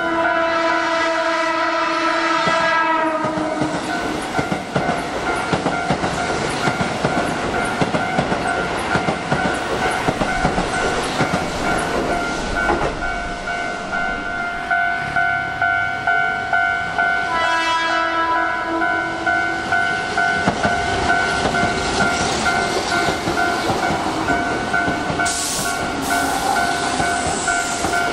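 Keihan electric commuter trains passing through a station: a train horn sounds for about three seconds at the start and again for about two seconds a little past the middle. Under it a level-crossing alarm keeps ringing about twice a second, with train wheels running over the rails.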